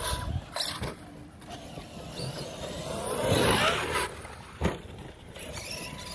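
Electric RC monster trucks running on dirt, their motors whining up and down in pitch as they are revved over jumps, with a sharp thud about two-thirds of the way through as a truck hits the ground.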